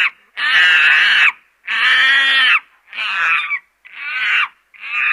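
Chimpanzee screaming: a series of about five shrill, high-pitched screams, each under a second long, one after another with short gaps.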